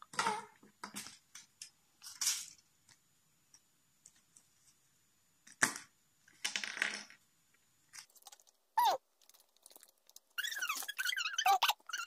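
Irregular crunching and crinkling as a Kinder Surprise chocolate egg is broken apart and its foil and paper handled, with a sharp click about halfway through as the plastic toy capsule snaps open. A run of short high squeaky sounds comes near the end.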